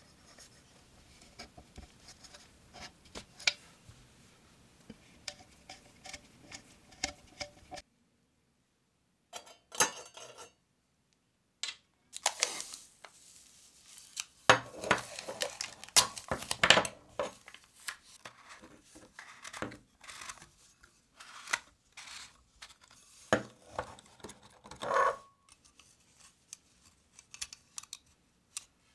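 Small hard parts being handled by hand: scattered clicks, taps and short scrapes, with a sudden cut to silence about eight seconds in, and the busiest, loudest handling in the middle of the stretch.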